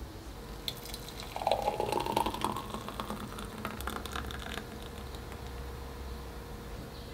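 Thick smoothie pouring from a plastic blender beaker into a drinking glass. The pour gives a gurgling sound whose pitch rises slightly as the glass fills, with light clicks of glass and beaker.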